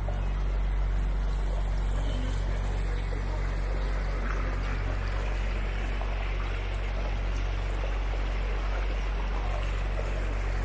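Tourist boat under way: a steady low motor hum with water splashing and running along the hull.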